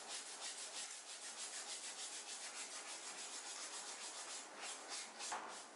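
Rapid scrubbing on a cotton shirt as a stain is worked out of the fabric with a handheld cleaning tool, quick even strokes about five a second, turning slower and uneven near the end.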